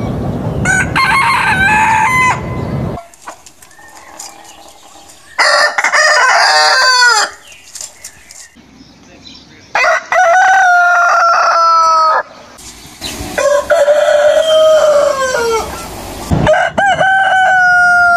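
Roosters crowing one after another: about five long crows, each ending in a falling pitch, with short quieter gaps between them.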